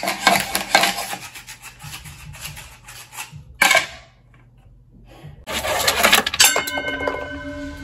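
Dice rattling and clicking inside a plastic cup swirled across a tabletop to stack them, in quick clatters, with a sharp knock about three and a half seconds in; the rattling stops for a moment, then starts again.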